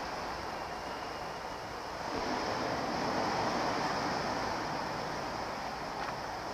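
Ocean waves washing and surging, a steady rush that swells about two seconds in and eases again.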